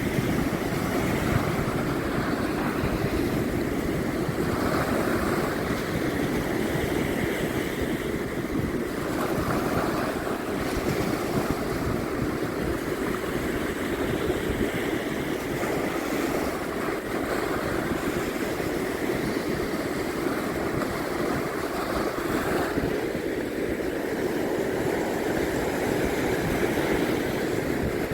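Steady rushing of surf breaking at an estuary mouth, with wind noise on the microphone.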